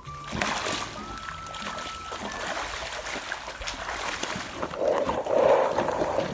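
Pig wallowing in a mud puddle: wet mud splashing and squelching under its body, with louder animal noises near the end.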